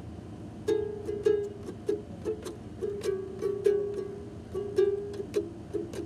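Plastic toy guitar strummed over and over at an uneven pace, its strings ringing on much the same note each time. The strumming starts a little under a second in.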